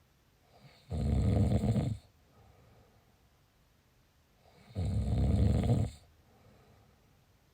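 Snoring: two loud snores about four seconds apart, each lasting about a second, the first about a second in and the second about five seconds in.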